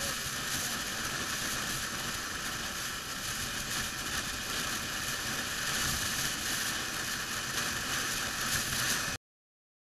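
Steady rush of wind and road noise from a motorcycle at freeway speed, heard through a camera mounted on the bike, with no clear engine note standing out. It cuts off abruptly about nine seconds in.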